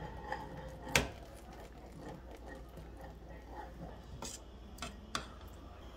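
A metal spoon stirring liquid in a stainless steel pot, with a sharp clink against the pot about a second in and a few fainter clinks later.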